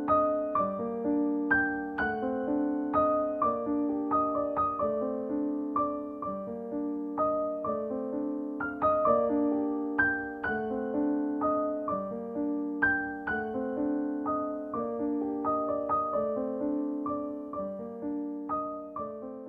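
Background piano music: a gentle tune of struck notes, one after another, over lower sustained chords.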